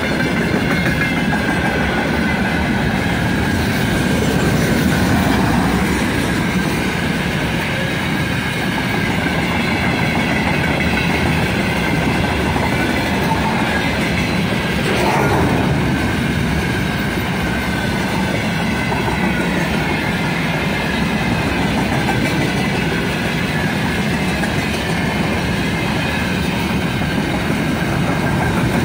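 Freight train of open-top gondola wagons rolling past at close range: a steady loud rumble of steel wheels on the rails, clattering over the rail joints, with a steady high ring running underneath.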